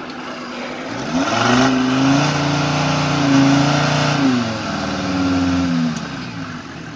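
Engine of a trophy-raid prototype buggy stuck in a mud pit, revved hard: it rises about a second in, holds high for several seconds with a brief dip, then falls back near the end. The buggy's clutch is smoking and its rear diff lock is not working.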